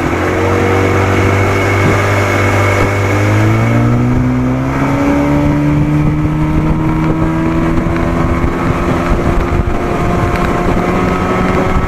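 1987 Johnson 40 hp two-cylinder two-stroke outboard motor throttling up, its pitch rising over the first five seconds, then running steady at speed.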